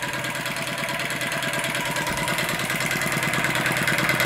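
Scratch-built single-cylinder flame licker (vacuum) engine running steadily on its methylated-spirit burner, a quick, even beat of strokes.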